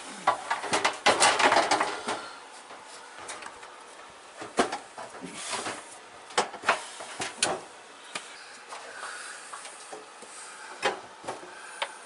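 Plastic dryer drum and housing parts clattering and knocking as they are handled and fitted back together: a busy rattle in the first two seconds, then scattered sharp clicks and knocks.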